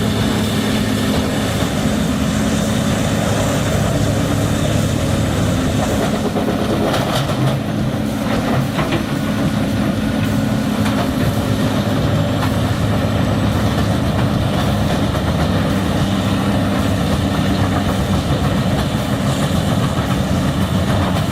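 Bandit Beast 4680 horizontal grinder running steadily under load, its Caterpillar C27 diesel engine turning the 60-inch cutter mill as it grinds whole trees and stumps. A few sharp knocks come about a third of the way in.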